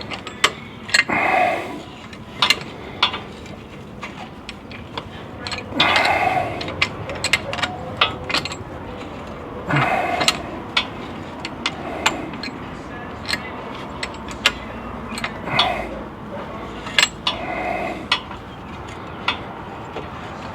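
Irregular metallic clicks and clinks of a wrench working a drag link's threaded end up onto its reverse-threaded sleeve, with a few short grunts or vocal sounds in between.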